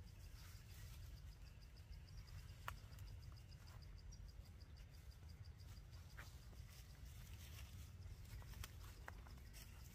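Quiet forest ambience: a faint insect chirping in an even, rapid high pulse that stops near the end, over a low rumble, with a few scattered sharp clicks.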